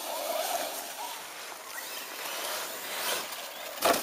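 Large-scale gas-powered RC car's small engine buzzing as it runs over dirt and dry leaves, then a hard thud near the end as it crashes and tumbles.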